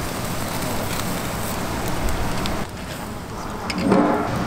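Shellfish sizzling and crackling on a grill: a steady hiss flecked with small pops.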